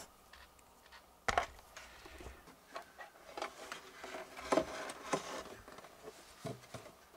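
Handling noise from a Tesla Model X's plastic lower dashboard trim and its felt sound-deadening being pried and pulled loose: one sharp click about a second in, then scattered small clicks and rustling. The panel is held on by sound-deadening material still stuck in place.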